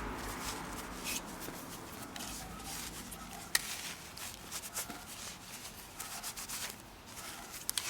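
A cloth wiping and rubbing over a pistol, a soft, uneven scuffing, with a few light clicks and taps, the sharpest about three and a half seconds in and near the end.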